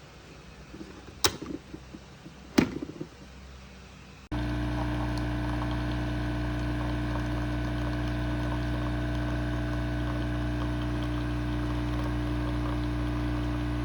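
Two sharp clicks, then a steady mechanical hum that starts suddenly about four seconds in and runs on evenly.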